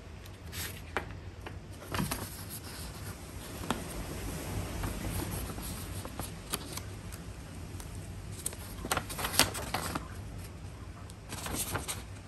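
Scattered light clicks, taps and rustles of things being handled, with a cluster of clicks about nine seconds in and more near the end, over a low steady hum.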